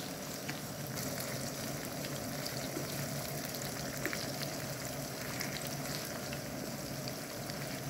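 Battered chicken pieces frying in hot vegetable oil in a wok: a steady sizzle with small scattered pops, as the pieces are stirred and separated with a wooden spoon.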